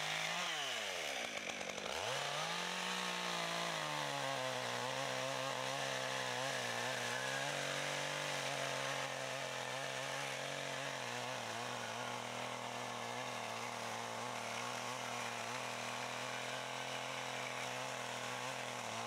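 Chainsaw cutting through a bundle of firewood logs held in a sawbuck. Its pitch drops and climbs back twice near the start, then holds steady through the cut.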